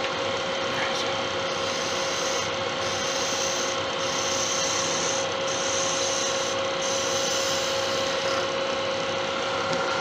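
Laguna wood lathe running with a steady hum while a turning tool takes light pull cuts on a spinning deer-antler pen blank. The cutting gives a scraping hiss that comes and goes in several passes.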